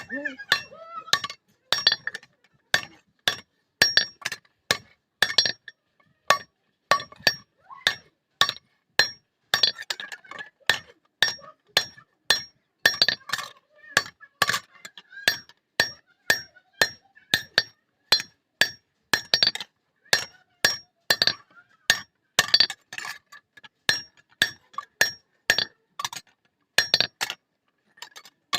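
Blacksmith's hammer striking steel on an anvil while forging a katari blade: an even rhythm of about two blows a second, each with a bright metallic ring.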